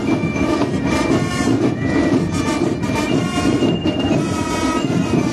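Marching band playing: dense drumming under a high melody of short held notes.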